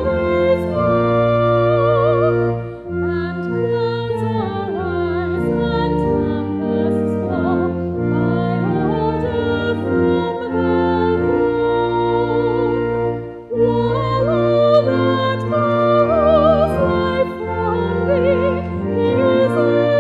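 A woman soloist singing with a wide vibrato over sustained organ chords, pausing briefly between phrases about three seconds in and again past the middle.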